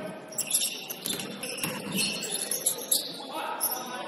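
Sneakers squeaking on a hardwood basketball court, several short high chirps during play, with some dull thuds underneath.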